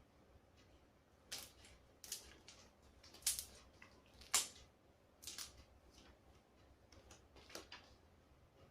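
Homemade slime being mixed and kneaded by hand, giving a few short, sharp sticky smacks and clicks at irregular intervals.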